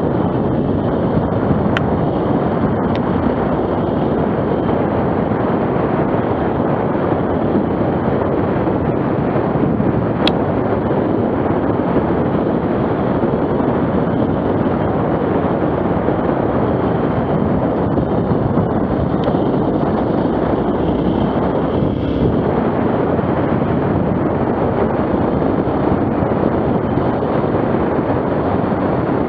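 Steady wind rumble buffeting the microphone by the sea, with a couple of faint clicks about two seconds and ten seconds in.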